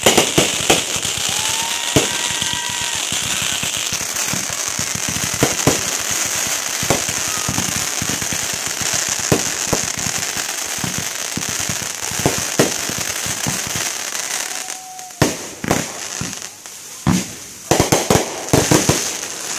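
Fireworks display: a dense barrage of crackling and popping with frequent sharp bangs. About three-quarters through the crackle thins, and a run of loud separate bangs follows near the end.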